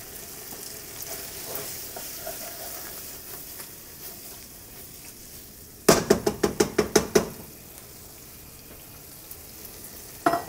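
Pasta in ricotta sauce sizzling softly in a skillet on a gas burner as it is stirred and tossed with a wooden spoon. About six seconds in comes a quick rattle of about ten sharp knocks in a second and a half, roughly seven a second, from the pan and spoon being worked.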